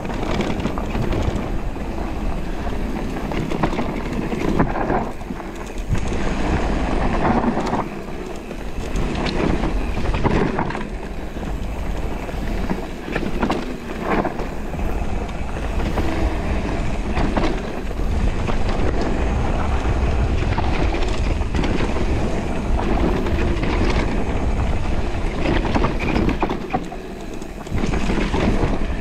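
Electric mountain bike riding down a dirt forest trail: knobbly tyres rumbling over dirt and leaves, with the bike knocking and rattling over bumps, and wind rumbling on the microphone.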